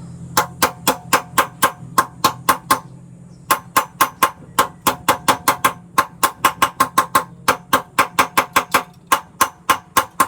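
Rapid metal-on-metal tapping, like a hammer striking metal: about four ringing strikes a second in runs broken by short pauses, over a steady low hum.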